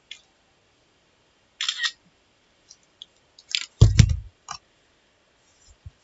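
Scattered sharp clicks and a short scrape, with a heavy low thump about four seconds in that is the loudest sound, followed by a few more clicks.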